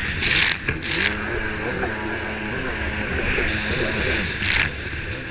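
Racing stand-up jetski running at speed, its engine pitch rising and falling as the throttle changes, under a steady rush of water and wind. Three short, loud bursts of spray hiss cut through, about half a second in, at one second and near the end.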